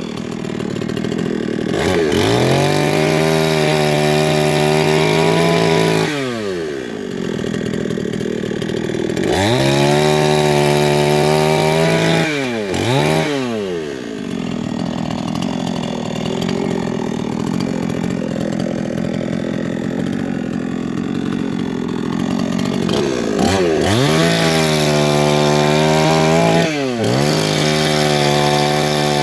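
Alpina A510 petrol chainsaw's two-stroke engine revved up to full speed and held there for a few seconds, then dropped back toward idle, four times over. There are two quick blips of the throttle in the middle and a longer stretch of low running before it revs up again.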